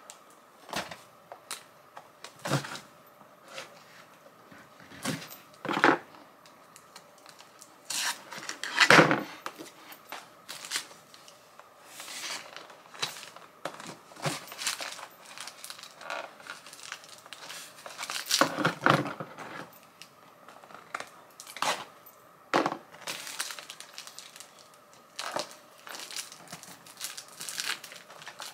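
Packaging being opened by hand: scissors snipping and plastic wrapping and a box being torn and crinkled in irregular rustles, with a few louder bursts, the loudest about nine seconds in.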